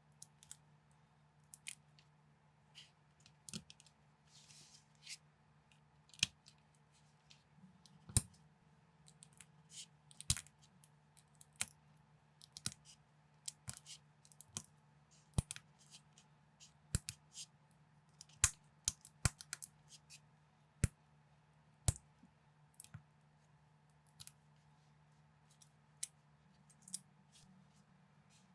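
Plastic LEGO bricks clicking and tapping as pieces are picked up and pressed together, in irregular sharp clicks, several bunched together in places, over a faint steady hum.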